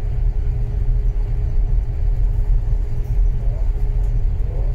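Low, steady rumble with a constant hum from a container ship's engine and machinery while the ship is under way.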